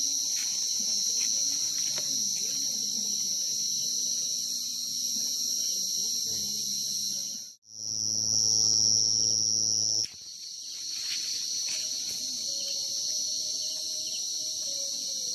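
Dense chorus of field crickets calling, a steady high-pitched trill with several pitches layered together. About seven and a half seconds in it cuts out for an instant, then one louder cricket call holds a single pitch for about two seconds before the full chorus returns.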